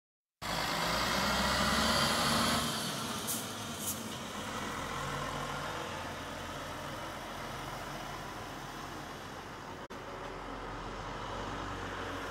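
Steady rumble of road traffic, louder for the first couple of seconds, with two brief high squeaks between three and four seconds in.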